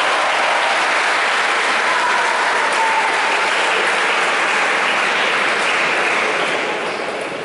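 Spectators in an arena clapping and cheering after a point in a table tennis match. The applause holds steady and dies down near the end.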